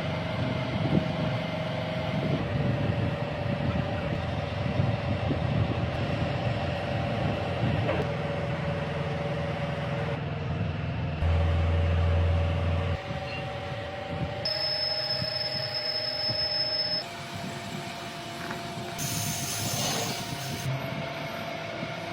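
Metalworking machinery running on a housing repair, mainly a lathe turning and cutting metal, as a steady mechanical drone with tones. The sound changes abruptly several times: a heavier low hum about halfway through, a high steady whine a little later, and a hiss near the end.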